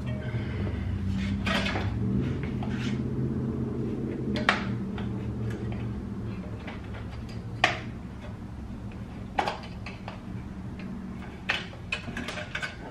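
A handful of sharp, separate metallic clinks and knocks as hand tools work on the car's front crash bar mount, over a steady low hum.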